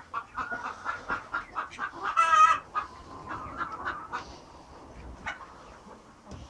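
Silkie chickens clucking in short repeated notes, with one louder, longer call about two seconds in, then quieter clucks toward the end.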